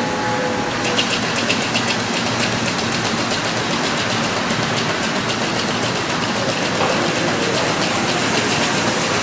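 Toy trains and a model roller coaster running on an O-scale layout: a steady mechanical whirr, with rapid, even clicking from about a second in.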